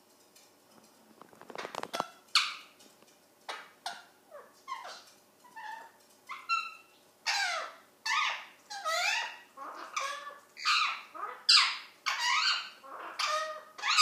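Ringneck parrot calling over and over, a run of sharp screeches that each slide down in pitch. The calls are spaced out at first, then come faster and louder from about halfway. A quick rattle comes just before the first call, about a second in.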